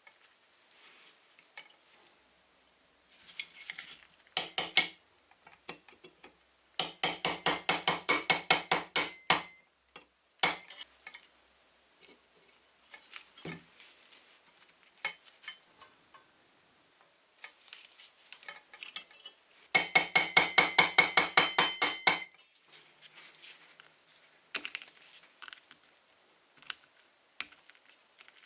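Rapid metal-on-metal tapping on a pressed-steel toy truck as it is taken apart: two runs of about five ringing strikes a second, with quieter clinks and handling noise between.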